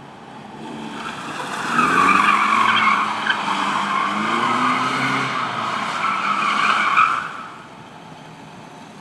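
Tyres of a 1974 Alfa Romeo GTV squealing as the car slides round in tight circles, with its twin-cam four-cylinder engine revving underneath. The squeal builds about a second in, holds for some five seconds and stops abruptly near the end, leaving only the engine.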